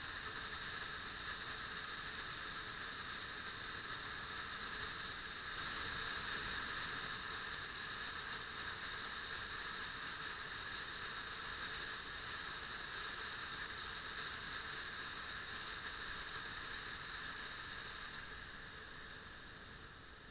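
Steady rush of running water in a limestone cave passage, dying away near the end.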